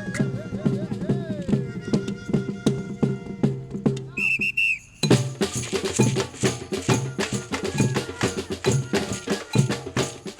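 Brazilian-style percussion group (batucada) playing a driving rhythm. About four seconds in, the drums drop out for a moment under a few short, shrill whistle blasts, then the whole group comes back in together.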